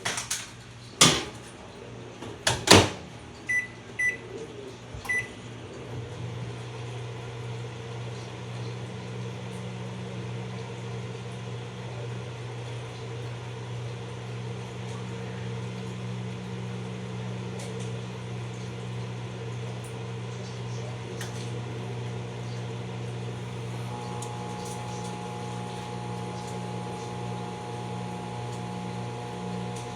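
Microwave oven door shut with two loud clunks, three short keypad beeps, then the oven starts and runs with a steady hum. A higher steady tone joins the hum near the end.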